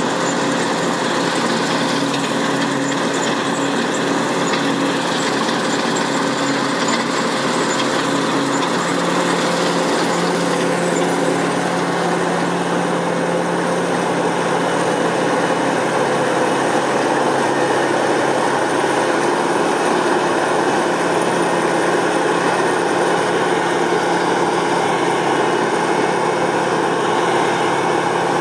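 Massey Ferguson 7360 PL combine harvester running under load while harvesting on a slope: a steady drone of engine and threshing machinery, its tone shifting a little about ten seconds in.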